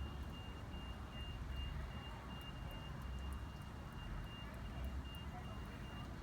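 An electronic beeper sounding a steady run of short, high, evenly spaced beeps, a few a second, over a low rumble.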